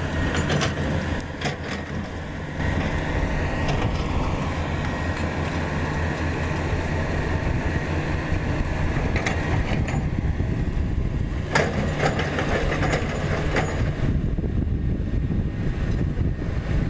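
Komatsu GD555 motor grader's diesel engine running steadily as it works, spreading aggregate. A sharp knock sounds about two-thirds of the way through, with a few lighter knocks around it.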